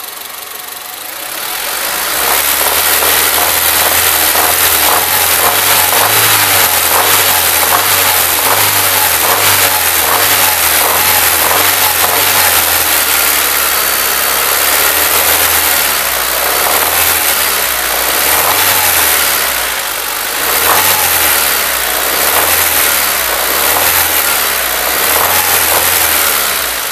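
2002 Honda Civic LX's 1.7-litre D17A1 four-cylinder engine, heard over the open engine bay, raised above idle about two seconds in and held there, easing off briefly a few times near the end. A rapid knocking runs through it, the abnormal knock the owner hears between 2,000 and 3,000 rpm under light revs. He rules out an exhaust leak, and parts stores told him it could be the lifters.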